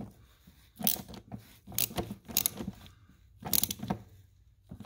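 A ratchet wrench clicking in short bursts, about five or six strokes, as the aluminium oil filter housing cap is tightened down toward its 25 Nm torque spec.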